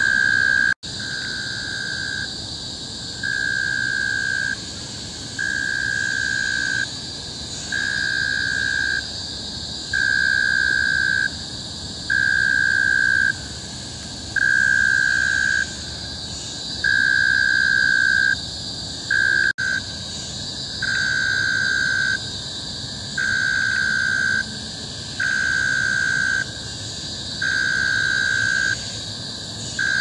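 Cicadas in tropical forest calling in a loud chorus: a steady high-pitched shrill, with a lower tone that pulses on for about a second and off again, over and over at an even pace. The sound cuts out for an instant twice.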